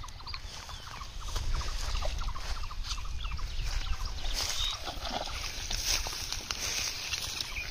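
Pond water splashing and sloshing as a cast net is hauled in through the shallows, with fish thrashing at the surface; the splashing grows louder about halfway through. A steady low rumble sits underneath.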